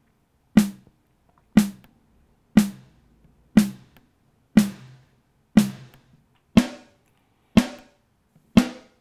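Synthesized snare drum from the Maschine 2.0 Drumsynth, one hit about every second in a steady pattern. Its tone changes partway through as the synth engine is switched from Airy to Vintage and retuned, the later hits ringing out brighter and longer.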